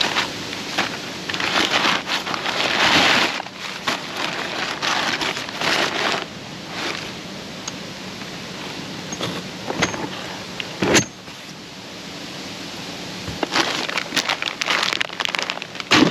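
Rustling and crackling of a parts delivery being opened and handled, with short clatters and a sharp knock about eleven seconds in, over wind noise on the microphone.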